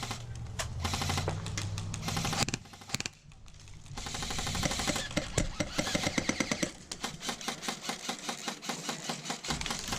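Airsoft guns firing: quick repeated snapping shots, sparse at first and then coming thick and fast in rapid strings through the second half.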